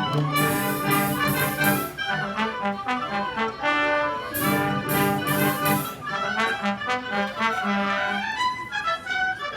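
Brass band music: horns play a melody over repeated low notes.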